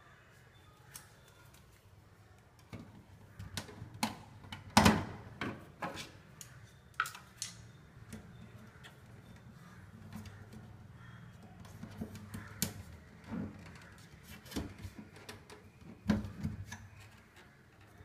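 Irregular plastic clicks and knocks as the lower service cover of an IFB front-loading washing machine is pried off and handled to reach the drain filter and drain hose, with one louder knock about five seconds in.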